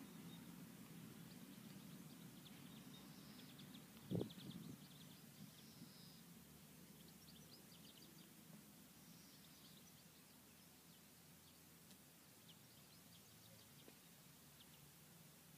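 Faint outdoor ambience of small birds chirping on and off, over a low background rumble that fades away, with a single thump about four seconds in.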